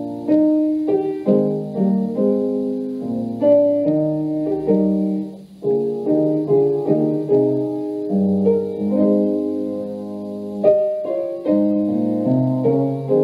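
Piano music playing a slow run of chords, with a brief pause about five and a half seconds in.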